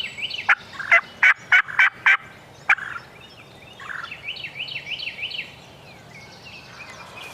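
Wild turkeys calling: a run of about seven loud, sharp yelp-like notes in the first three seconds, then a rapid rattling gobble around four to five seconds in.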